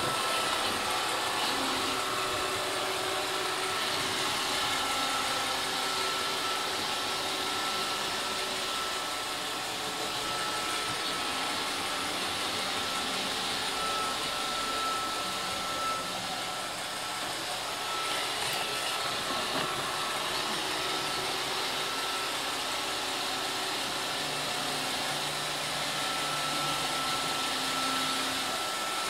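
iRobot Roomba 532 robot vacuum cleaning a wooden floor: the steady whirr of its vacuum motor and brushes, with a thin, steady high whine running through it.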